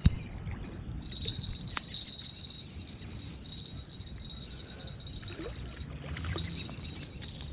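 A hooked carp splashes once, sharply, at the water's edge at the start. Light rattling and handling noise follow, over a steady high insect trill.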